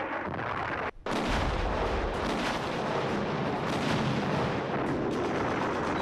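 Battle sound effects of dense, continuous gunfire and artillery blasts, broken by a very short gap about a second in.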